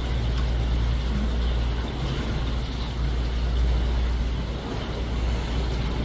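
Tour boat's engine running at slow speed, a steady low drone with a wash of water and hull noise over it.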